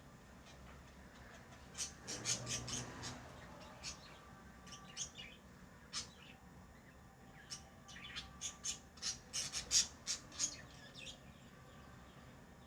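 Pet lovebirds chirping: short, sharp, high-pitched chirps, a quick flurry about two seconds in and a longer run of rapid chirps in the second half.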